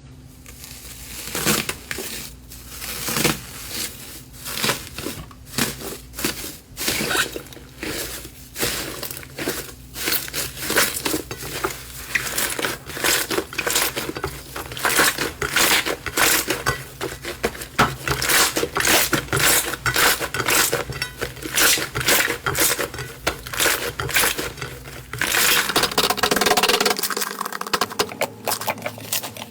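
Slime being squeezed and worked by hand, with a rapid, irregular crackling and popping that grows denser and louder near the end.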